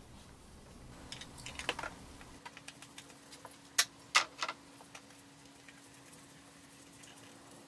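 Light clicks and knocks of an oil filter element and its housing being handled during fitting: a scatter of small taps, then two sharp knocks about four seconds in, the loudest, followed by a few softer ones.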